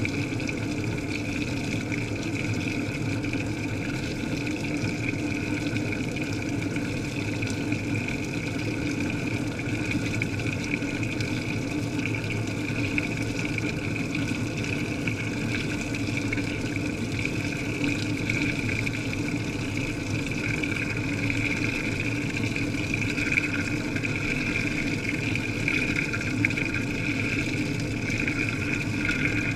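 Washing machine running, heard from inside the drum: a steady drone of the turning drum and motor with water rushing and splashing as it sprays in.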